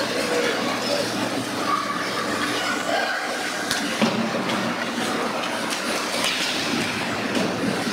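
Youth ice hockey play in an echoing indoor rink: a steady wash of skates scraping the ice, with a couple of sharp clacks of stick or puck near the middle.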